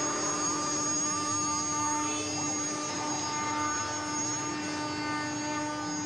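Spindle of a DCT-1325 CNC router running steadily as the bit carves a wooden panel: a constant machine whine over a hiss of cutting noise.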